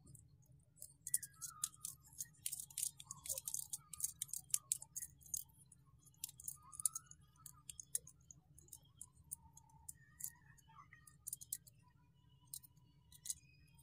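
Phone holder being screwed onto a small plastic tripod's threaded mount: a run of small quick clicks and scrapes, thickest over the first few seconds and then scattered.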